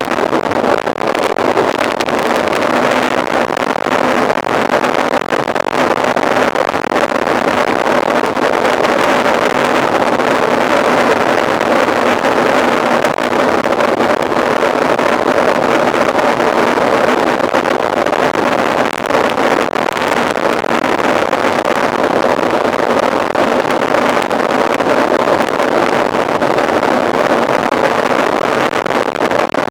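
Steady rushing noise of a mountain bike ridden at speed: wind buffeting the camera's microphone over the rumble of tyres on the trail.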